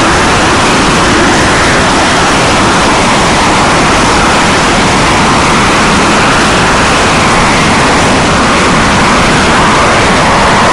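SEPECAT Jaguar jets taxiing, their twin Adour turbofan engines giving a loud, steady jet roar and hiss with a higher band in it that slowly wavers in pitch.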